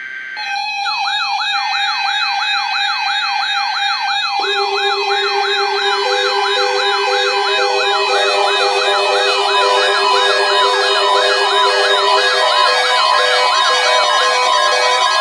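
Stacked electronic warning sounds: a fast-sweeping electronic siren, about four sweeps a second, and a steady alert tone start together about half a second in. More layers are added one after another: a lower steady tone about four seconds in, then pulsing beeps and further tones, building into a dense, loud din of alarms.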